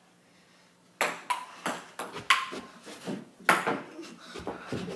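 Table tennis rally: the ball clicking off paddles and the table, about three sharp hits a second, starting about a second in, some with a short ring.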